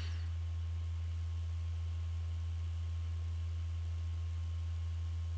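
Steady low electrical hum with a faint hiss and a thin steady high tone: background noise of the microphone recording chain, with no other sound.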